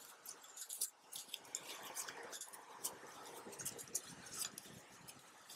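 Faint, irregular clicks, light clinks and scrapes of small metal motorcycle fork parts being handled and set down on the workbench.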